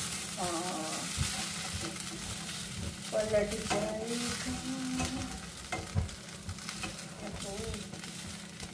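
A sabudana uttapam sizzling in an oiled frying pan while a spatula scrapes and prods underneath it to loosen it for flipping, with scattered short clicks of the spatula against the pan.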